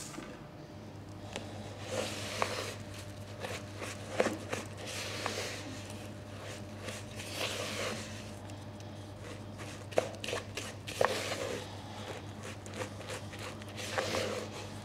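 Wooden spoon stirring toasted coconut into whisked egg white in a ceramic bowl: irregular scraping and crunching, with several sharp knocks of the spoon against the bowl, over a low steady hum.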